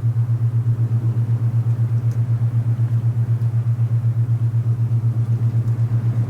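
Alpha binaural beat: a low steady tone pulsing evenly about ten times a second, over a faint hiss of wind.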